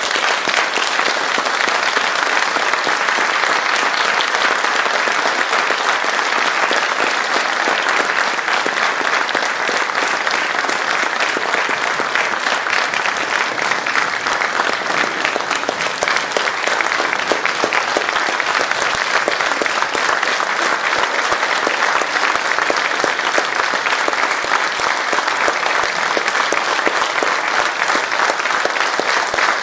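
Theatre audience applauding, a dense and steady clapping.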